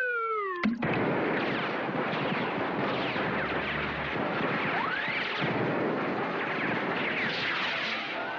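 Cartoon sound effects: a falling whistle ends in a sudden bang under a second in, then a long, loud barrage of crackling explosions with whistling rises through it, stopping near the end.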